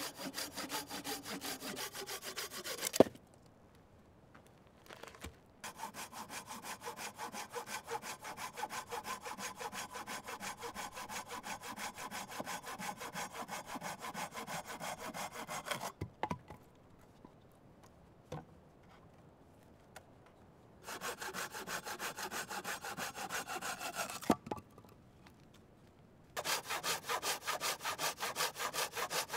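ESEE-5 fixed-blade knife scraping bark off a log in rapid, rhythmic back-and-forth strokes, in several runs broken by short pauses. A single sharp knock comes about three seconds in.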